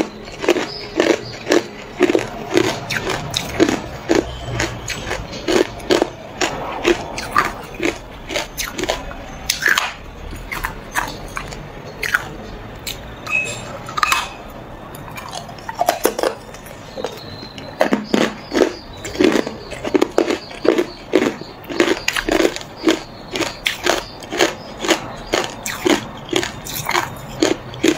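Hard ice cubes coated in matcha powder crunching and cracking between the teeth in repeated bites and chews, a few sharp crunches a second, with a sparser stretch midway.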